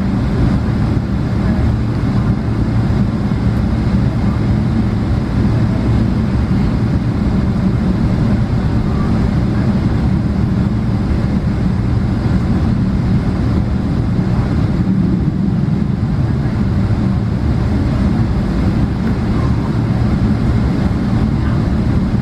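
Steady low rumble inside the cabin of a Boeing 777 taxiing, its jet engines at taxi power and the airframe rolling over the taxiway.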